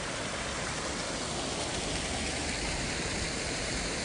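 Steady rushing splash of a paddlewheel aerator churning fish-pond water.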